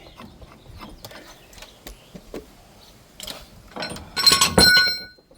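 Steel ball joint press kit adapters being handled and knocked together: scattered light clicks, then a loud metallic clatter with a brief ringing about four seconds in.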